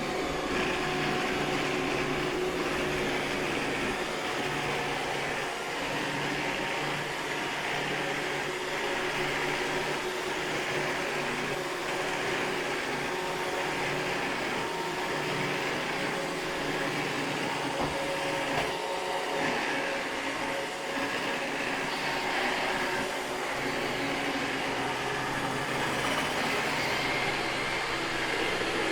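iRobot Roomba 630 robot vacuum running steadily as it cleans, the whir of its vacuum motor and brushes holding an even level.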